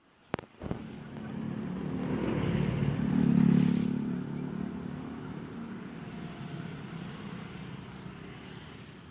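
A bus driving past: its engine grows louder, is loudest about three and a half seconds in, then fades away. A sharp click comes just after the start.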